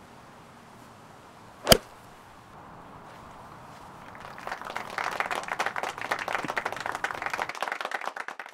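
A single sharp crack of a golf club striking the ball about two seconds in, followed from about four seconds in by applause that builds and keeps going.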